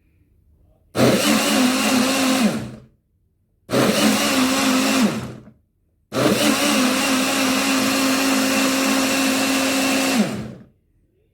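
Imarflex 3-in-1 Blend to Go personal blender's motor blending a smoothie in three pulses: a short burst, a second short burst, then a longer run of about four seconds. Each pulse holds a steady hum and winds down in pitch as the button is released.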